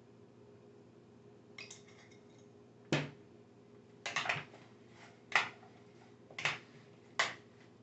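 A spoon knocking and scraping against a plastic mixing bowl while broccoli florets are tossed with seasoning: a few faint ticks, then about five sharp clacks roughly a second apart.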